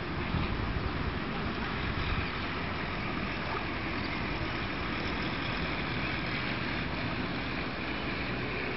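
Steady rushing background noise of flowing river water, with no distinct events.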